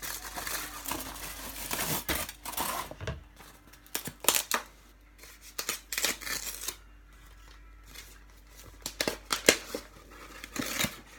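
Crunchy chunks of cornstarch being crunched, with sharp crisp crackles in short bursts every second or two.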